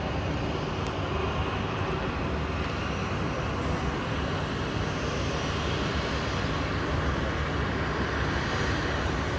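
Twin-engine jet airliner's engines running as it moves along the runway for takeoff: a steady rushing hum that swells slightly in the second half.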